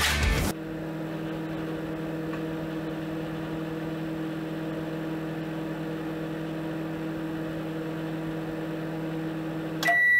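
Microwave oven running with a steady hum, then one loud, high beep near the end as it finishes.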